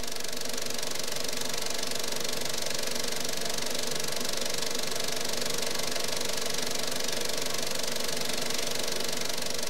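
Film projector running with a steady, rapid mechanical clatter.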